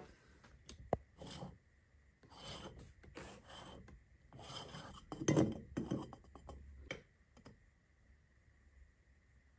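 Faint rubbing and scraping as the threaded pump top is unscrewed from the neck of a metal oil can, with a sharp click about a second in and the loudest scrape about five seconds in.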